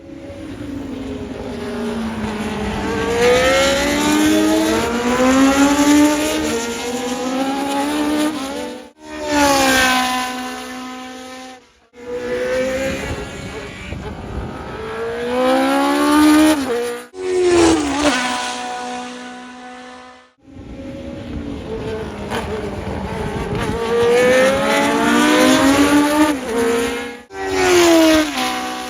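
Historic Formula 1 car engines at racing speed, repeatedly rising in pitch as they accelerate up through the gears and falling away as cars pass by. The sound comes in several short clips cut one after another.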